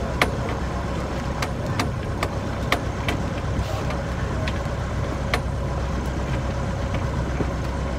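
Steady low engine hum, typical of a sailboat's auxiliary motor running, with sharp irregular clicks and knocks over it.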